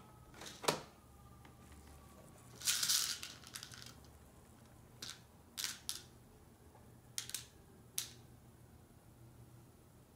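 Quiet, sparse clicks and taps of small plastic things being handled: coloured beads in a small plastic cup and a plastic toy. There is a short rattling rustle about three seconds in.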